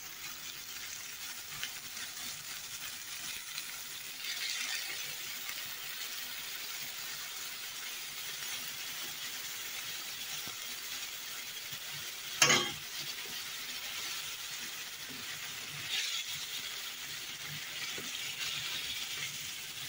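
Chopped onion, garlic and spices sizzling in oil and bean cooking water in a frying pan: a steady hiss that swells a few times. A single sharp knock about twelve seconds in.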